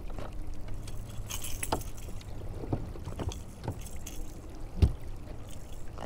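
Handling noises of a small fish being unhooked in a kayak: light clicks and rattles of a lure's treble hooks, with one sharp knock against the hull a little before the end, over a low steady rumble.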